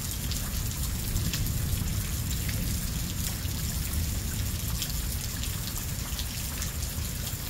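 Rain falling steadily with many scattered drips, as a thunderstorm is petering out, over a low steady rumble.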